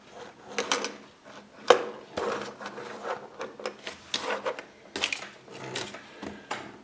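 Small plastic toy fingerboards being set down and pushed about on a tabletop: a run of light clicks and taps from the plastic boards and wheels, with rubbing between them and one sharper click just under two seconds in.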